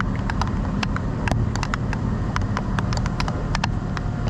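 Steady low machinery drone with many irregular sharp clicks and ticks over it.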